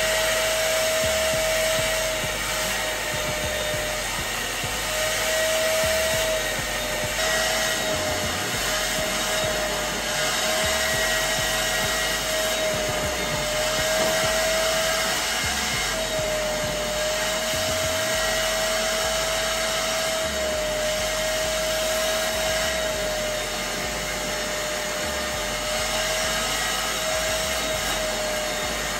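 Hoover carpet and upholstery shampooer running steadily, its motor giving a high whine that wavers slightly in pitch as it sucks shampoo and dirt out of a cloth car seat.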